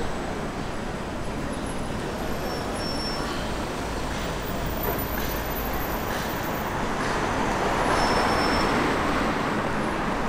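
Street traffic noise: road vehicles running and passing, one passing louder about eight seconds in.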